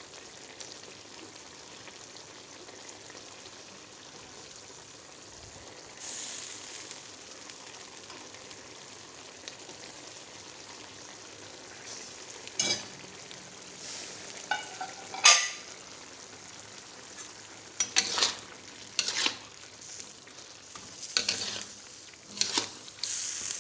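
Chicken curry sizzling and simmering in a pot with a steady hiss. About halfway through, sharp knocks and clinks of a utensil against the pot start and come more often toward the end, as the pot is stirred.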